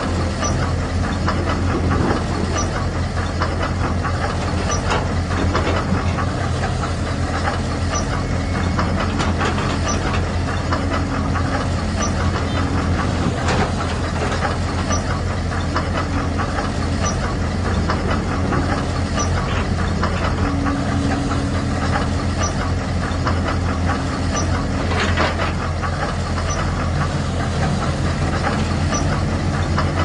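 Radio-controlled model construction machines running: a steady low motor and hydraulic-pump hum with a fast, even rattle as a hydraulic RC JCB excavator works its arm beside an RC Cat bulldozer. A couple of louder clatters stand out, one about halfway and another near the end.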